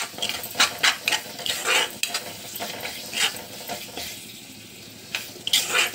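Spatula scraping and stirring boiled chana dal into a sizzling masala in a metal kadhai, over a steady frying sizzle. The scraping strokes come thick for the first few seconds, ease off, then pick up again near the end.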